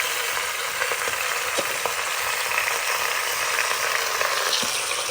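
Raw chicken pieces sizzling steadily as they fry in hot ghee, with a few faint clicks.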